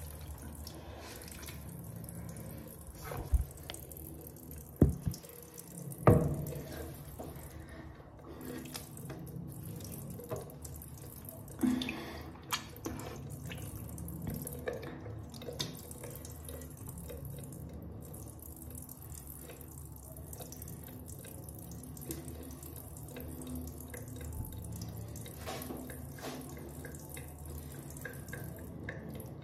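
Bathroom sink tap running into the basin while a face is washed at it. Three sharp knocks come about three to six seconds in.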